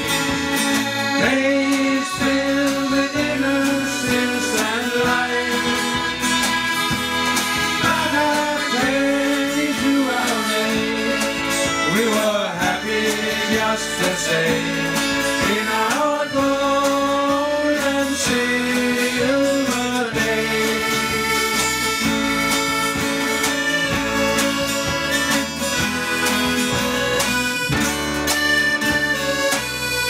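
Live band playing an instrumental passage with the accordion to the fore, backed by electric guitar, bass guitar and drums.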